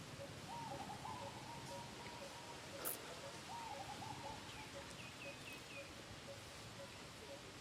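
Birds calling: one repeats a low note about twice a second, while warbling calls come and go over a thin steady whistle. A short run of four high chirps comes about five seconds in. A single sharp click a little under three seconds in is the loudest sound.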